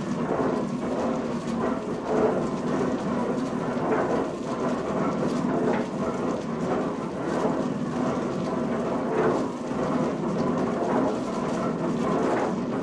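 Snuff mill machinery running: a steady rumble with a constant irregular clatter of small knocks.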